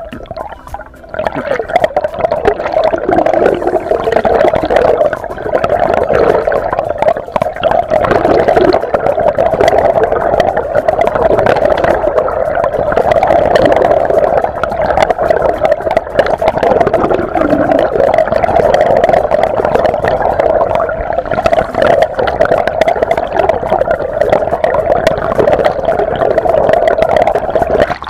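Underwater sound picked up by a submerged action camera: loud, muffled rushing and gurgling of water with dense crackling clicks and a steady drone beneath, starting about a second in.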